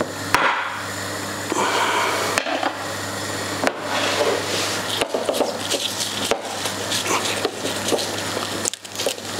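Kitchen handling sounds: scattered, irregular knocks and rubs of food and utensils on a wooden chopping board, over a steady low hum.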